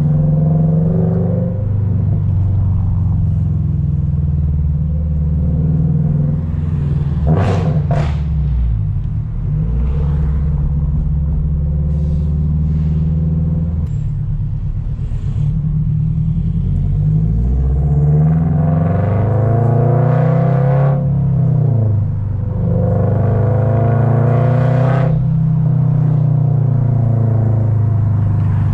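The straight-piped 2.4-litre flat-four of a 2023 Toyota GR86 running at low, steady revs while driving, with two short sharp cracks about seven and eight seconds in. In the second half the exhaust note twice climbs and drops back as the engine revs up and eases off.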